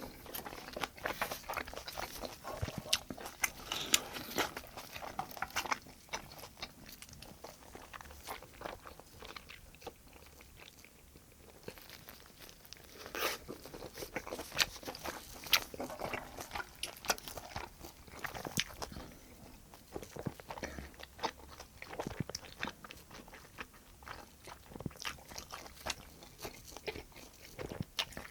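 Close-miked mouth sounds of eating braised kimchi stew: chewing, biting and crunching with irregular wet clicks and smacks. The eating sounds ease off for a few seconds about ten seconds in, then pick up again.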